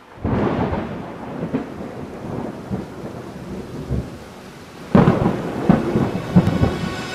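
Thunder-like rumbling over a rain-like hiss, which gets louder about five seconds in.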